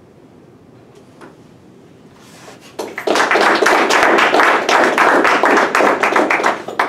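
Audience applauding, starting about three seconds in after a quiet stretch and lasting about four seconds before stopping just before the end.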